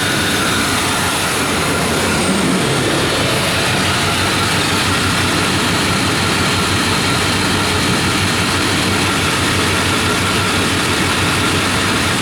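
1994 Chevy Silverado 1500's 350 V8 running steadily at the tailpipe while it puffs white smoke. The owner suspects a failed gasket is letting coolant into the exhaust.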